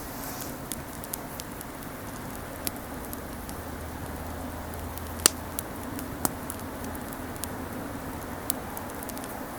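Wood campfire crackling, with scattered sharp pops and snaps over a steady low background; the loudest pop comes about five seconds in, with another a second later.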